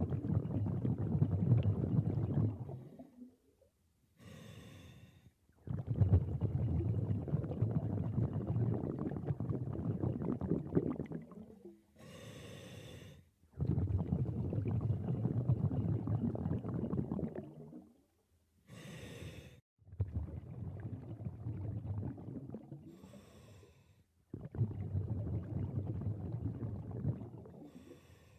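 Scuba diver breathing through a regulator: long loud bursts of exhaled bubbles, each followed by a short, quieter, higher hiss of inhalation, about five breaths in all.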